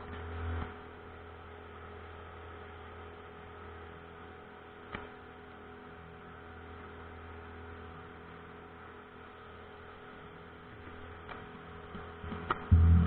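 Steady low hum of a pontoon boat's outboard motor running. Near the end it turns into a much louder, deep rumble.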